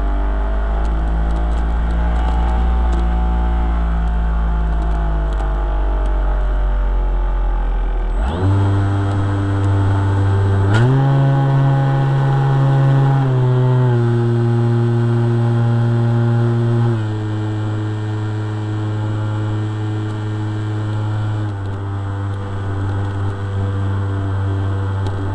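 Electric motor and propeller of a HobbyKing MX2 foam RC plane, heard from a camera inside the plane, whining steadily. About a third of the way in the pitch jumps up sharply as the throttle is opened. It then settles lower in several steps as the throttle is eased back.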